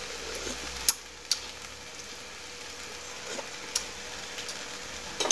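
Shrimp and sauce sizzling steadily in a wok, with a few sharp clicks.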